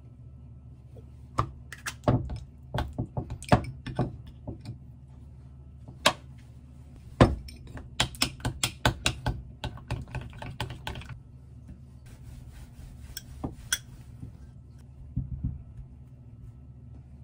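Metal spoon clicking and scraping against a glass bowl while honey is stirred into microwave-softened cream cheese, with a quick run of clinks partway through. Near the end come a few softer scrapes as the spoon spreads the mixture on bread.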